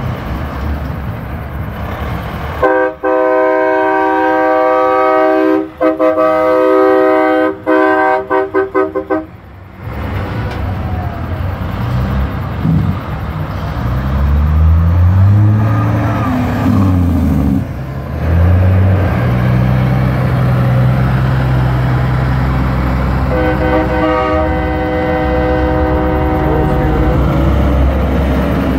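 Semi-truck air horns in a long blast, broken into a string of short toots near its end. Low diesel truck engines rise and fall in pitch as the trucks roll past, and a second, fainter horn blast comes near the end.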